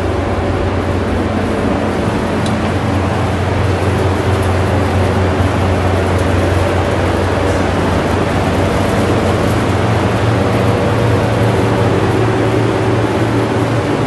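Refrigeration condensing units for a dairy's bulk milk tank running: a steady, loud machine hum with a strong low drone.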